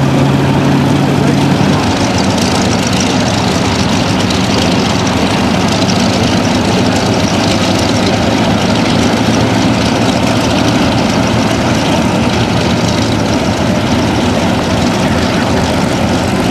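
A P-38 Lightning's twin Allison V-12 piston engines running at taxi power with propellers turning, other warbird engines running behind it. A loud, steady engine drone with a clear low hum for the first couple of seconds, then rougher propeller noise.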